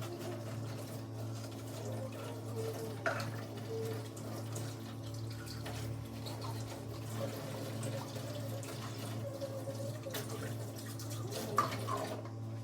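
Water running from a kitchen tap into a sink during dishwashing, with a short knock about three seconds in and a louder one near the end.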